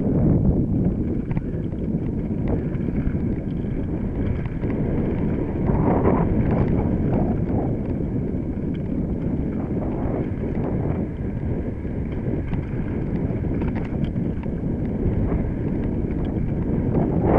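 Mountain bike riding down a rough dirt trail: a steady rumble of tyres and wind on the microphone, with a constant clatter of knocks as the bike rattles over bumps.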